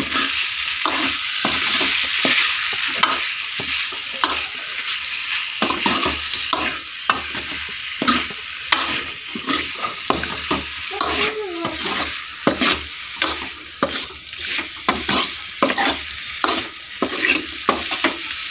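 Mutton pieces sizzling in a large metal kadai while a metal ladle stirs them, scraping and clinking against the pan over a steady frying hiss. The scrapes come more often and sharper in the second half. The mutton is being fried well in little oil and its own fat.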